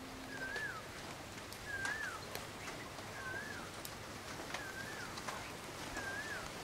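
A bird calling outdoors: a single short whistled note, rising then falling, repeated five times at steady intervals of about a second and a half, over faint background noise with a few scattered ticks.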